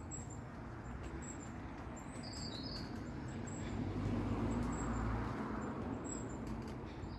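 Outdoor spring ambience: a broad rushing noise swells toward the middle and fades again, with a few brief high bird chirps.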